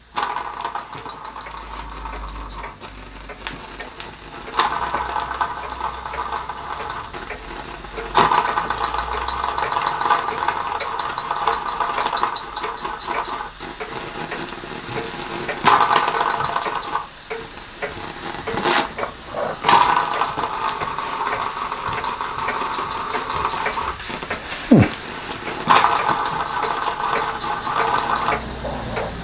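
Steam hissing in bouts of a few seconds from a Castle Products Model B toy steam engine's copper boiler, with scattered sharp clicks. It is the sign of a loose safety valve nut and spring venting steam, which the owner blames for too little pressure to run the engine properly.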